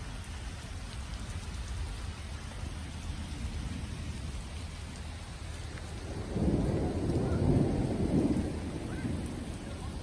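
Steady rain falling through trees, with a roll of thunder that swells about six seconds in and rumbles for around three seconds before fading.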